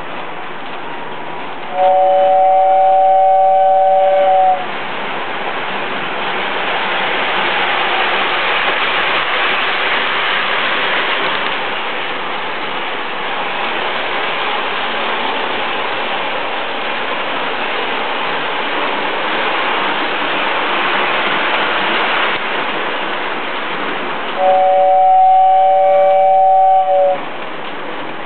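Toy train running around its layout with a steady rushing noise, sounding a two-note whistle twice: once about two seconds in and again near the end, each blast held steady for about two and a half seconds.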